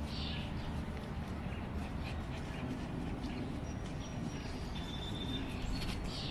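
Steady background rumble and hiss with a few short bird chirps, one near the start and one near the end, and a brief thin whistle about five seconds in.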